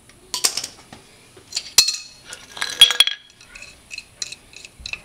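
Steel adjustable wrench clinking and clanking against metal as it is set onto the wheel hub's nut: a few sharp clusters of clinks, the loudest about three seconds in, then lighter ticks.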